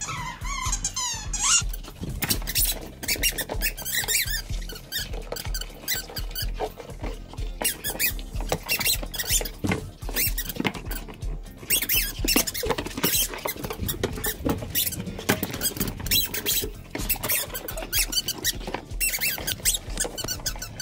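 Rubber chicken squeaky toy squeaking over and over as a husky bites and chews it, over background music with a steady beat.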